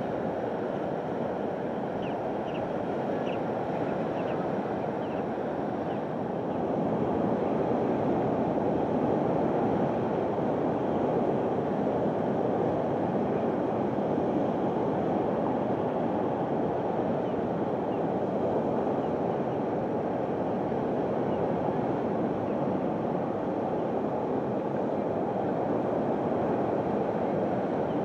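Sea surf breaking and washing on a shingle shore: a steady rushing noise that grows louder about six seconds in.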